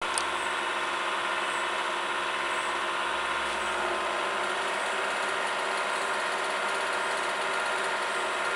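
Tensile testing machine's drive running steadily as it stretches a silicone strip held in pneumatic grips: an even mechanical hum. There is a short click at the very start.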